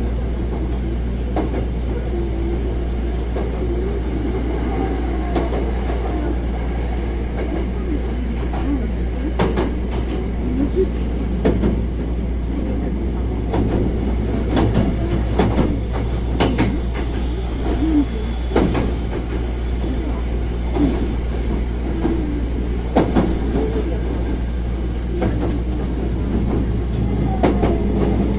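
Hankyu 1000 series electric train running between stations, heard from inside the car: a steady low rumble of wheels on rail with frequent sharp clicks and wavering rail noise. A rising whine starts near the end.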